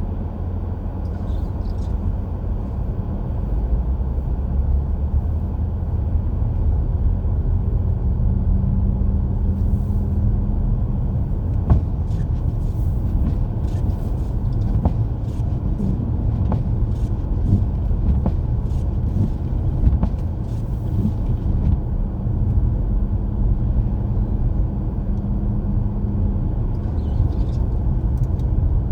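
Car driving on a snowy road: a steady low rumble of engine and tyres, with a run of irregular sharp clicks through the middle.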